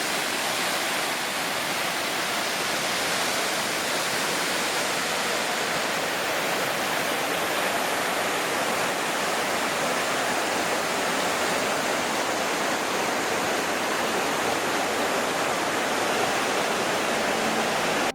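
Water rushing steadily over a jungle waterfall cascade, a constant even roar with no breaks.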